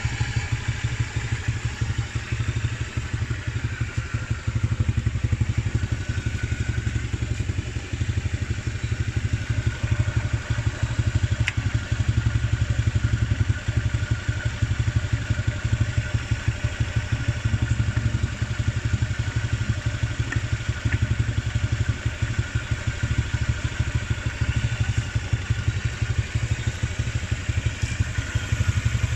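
Motorcycle engine idling steadily, with a fast, even low pulse that does not change.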